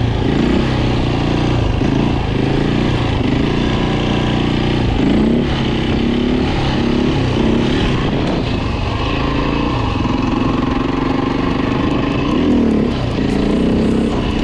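Beta RR 450 dirt bike's four-stroke single-cylinder engine running while ridden, its pitch rising and falling again and again with the throttle.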